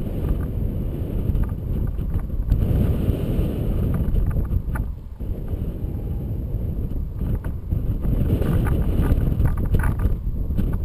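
Rushing airflow buffeting the microphone of a camera trailing a paraglider in flight: a steady low rumbling wind noise that swells and eases, with scattered brief clicks.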